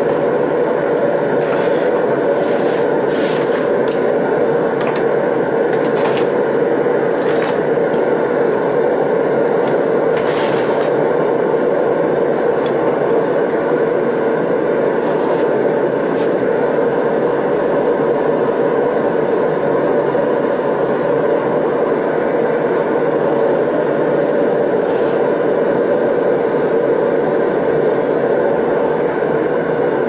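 Air/propane torch burning steadily into a Kaowool-lined brick furnace, a constant rushing flame noise as it heats a crucible of scrap silver toward melting. A few faint ticks sound within the first ten seconds or so.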